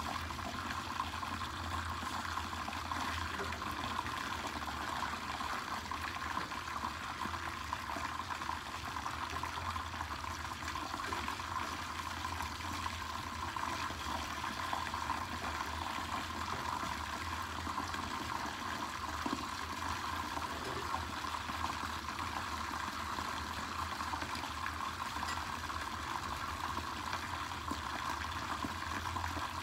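Covered pots boiling on a glass-top electric stove: a steady watery hiss with a low hum underneath.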